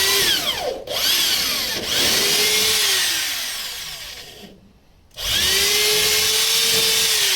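Electric drill with a small bit pre-drilling pilot holes in wood, the motor whining and changing speed as the trigger is worked. It runs for about four seconds with a couple of brief slowdowns, stops for a moment, then drills a second hole from about five seconds in, winding down near the end.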